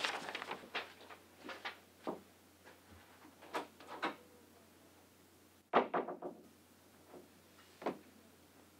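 A few scattered soft knocks and shuffles, then a door shutting with a sharp thump about six seconds in, with one more light knock near the end.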